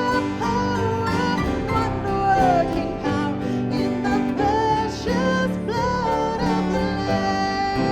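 Worship song sung by a voice over plucked guitar accompaniment.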